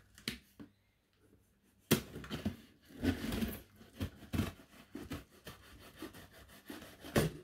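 Taped cardboard box being opened by hand: cardboard flaps and tape pulled and rubbing, in uneven scrapes, with sharp loud sounds about two seconds in and again just before the end.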